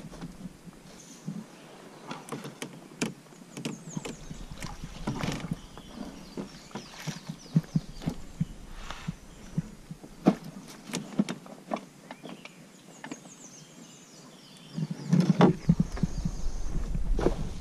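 Irregular knocks and clatter of a canoe and paddle on the river, with water sounds; it grows louder near the end, with a low rumble.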